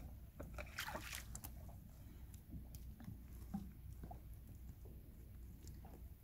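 Broken sea ice and snow crunching under hands and bare feet as a swimmer climbs out of an ice hole and walks over the ice blocks. A cluster of sharper crunches comes about a second in, then fainter scattered crunches and small knocks.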